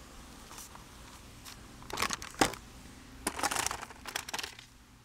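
Rustling, crinkling handling noise in two short spells, with one sharp click about two and a half seconds in.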